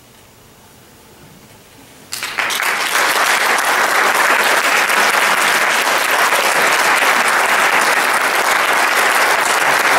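A brief hush, then audience applause breaks out about two seconds in and carries on steadily.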